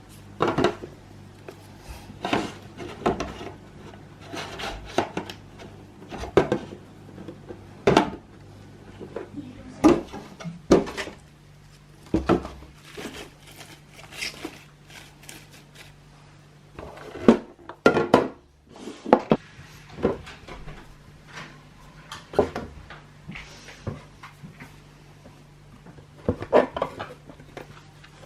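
Food containers and plastic fridge-organizer boxes being handled and set down on fridge shelves: a string of irregular knocks, clatters and light scrapes, over a low steady hum.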